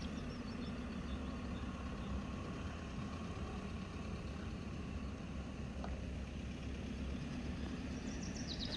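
VW Crafter campervan's engine running with a steady low hum. A bird's rapid high-pitched trill starts near the end.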